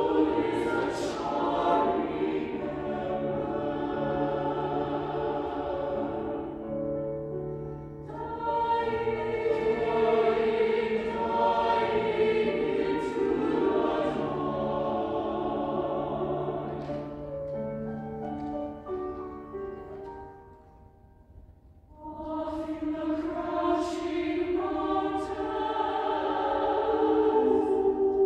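Mixed SATB choir singing a slow, sustained choral piece in long phrases. The sound thins about 8 seconds in, fades almost to nothing about 20 seconds in, and the full choir comes back in a second or two later.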